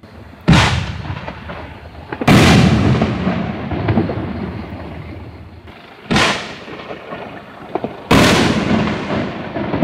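Two 5-inch, 60-gram reloadable canister shells, each launched from its mortar tube with a short, sharp thump and bursting about two seconds later with a boom that fades away over several seconds.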